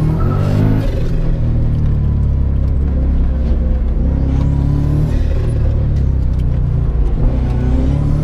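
Volkswagen Superbug race car's engine running hard under load, heard from inside the cabin, its pitch changing a few times as the car is driven through the gears.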